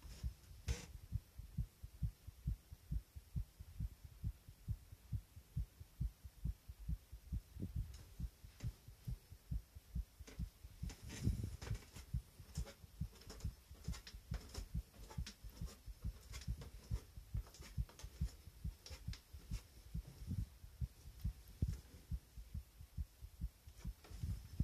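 Heartbeat: a steady rhythm of soft, low thuds repeating evenly.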